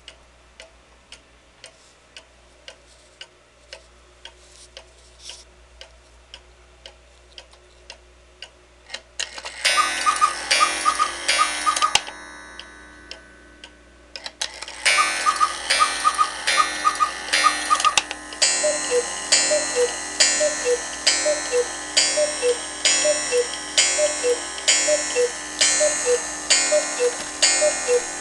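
Hubert Herr Black Forest quail cuckoo clock ticking at about two beats a second. About ten seconds in, its strike train runs with whirring bellows: the quail gives two runs of quick high calls. Then the cuckoo calls over and over, about once a second, as the hands are set to the hour.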